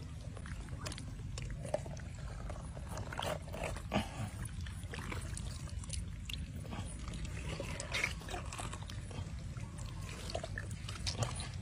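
Wet squelches and slaps of raw calf intestines and stomach being pulled apart by hand and cut with a knife: short, scattered sounds over a steady low rumble.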